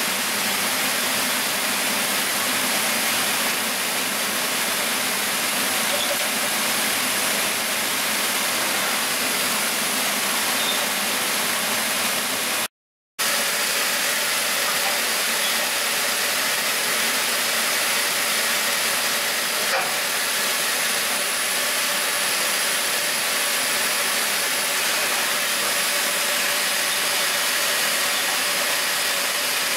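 Aquamaster RI-5400 rotary indexing parts washer running: a steady hiss of spray with a faint machine hum and a thin high whine. A brief gap of silence about thirteen seconds in.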